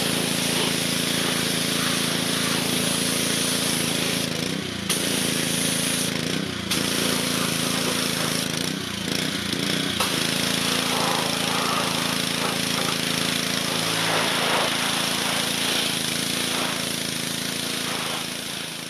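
Honda-engined gas pressure washer running steadily, with water hissing from the spray wand. The engine note dips and wavers briefly a few times, and the sound fades out near the end.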